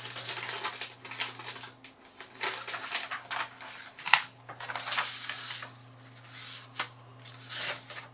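Paper rustling and crinkling with small clicks as fishing tackle is handled, with one sharp click about four seconds in.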